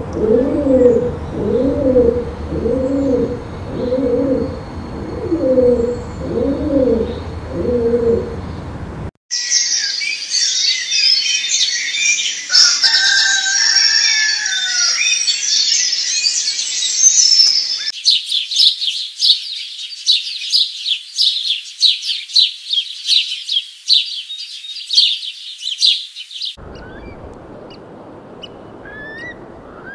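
A flock of pigeons cooing, with a string of low rising-and-falling coos about one a second. After a hard cut, chickens call and a rooster crows amid dense high calls. Then comes a fast run of high chirps, and near the end faint bird chirps over a soft outdoor hiss.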